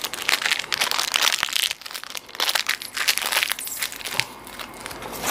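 Food packaging crinkling and rustling in the hands: a dense run of irregular crackles that eases off near the end. This is the handling of the seasoning sachet and paper fries bag while gulai seasoning powder is added to shaker fries.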